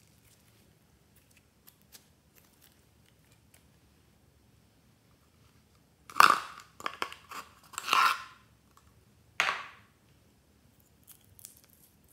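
A stiff pink paper owl cut-out being torn apart by hand: about five sharp, crunchy rips close together, the first the loudest.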